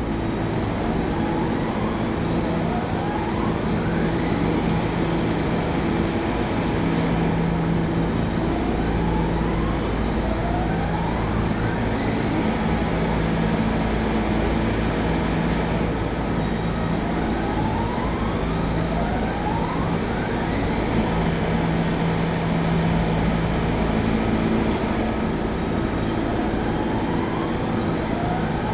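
R68 subway car making a weird noise: a rising whine repeats every four to five seconds over the train's steady running noise and low hum.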